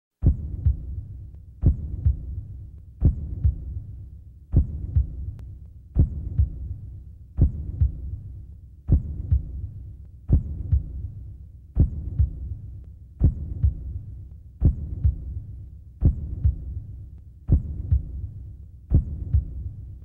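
A heartbeat sound effect: slow, deep double thumps, a strong beat and a lighter one close behind, repeating about every one and a half seconds and fading between beats.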